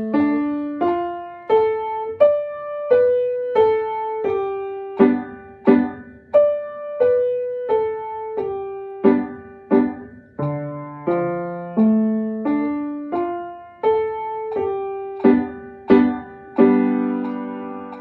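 Piano played at a slow, steady pulse, a note or chord about every 0.7 seconds, with a melody of broken falling figures over low bass notes. Near the end a final low chord is struck and held.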